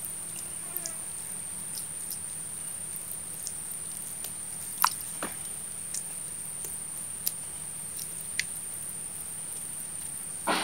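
A steady high-pitched insect drone, with faint scattered wet pats and clicks of a hand smoothing soft clay on a clay stove and a louder brief knock near the end.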